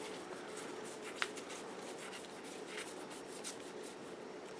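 Cardfight!! Vanguard trading cards being handled and flipped through, with soft sliding and rubbing rustles and one sharper click about a second in. A faint steady hum runs underneath.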